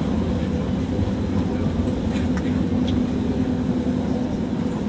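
Inside a moving tram: a steady rumble of the car running along the rails with a low even hum, and a few faint clicks and knocks.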